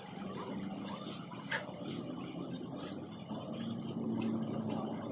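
A motor vehicle engine hums steadily at a low pitch, growing a little louder in the second half, with a few scattered sharp clicks.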